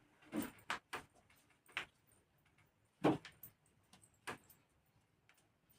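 About eight short, sharp clicks and knocks, scattered irregularly over a few seconds, from hands working a patient's ankle during a bone-setting adjustment. The loudest comes about three seconds in.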